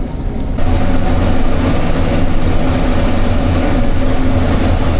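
Combine harvester's engine and threshing machinery running, heard from inside the cab, with a steady low hum. About half a second in, the sound jumps louder and stays there, as the combine goes from warm-up idle to working.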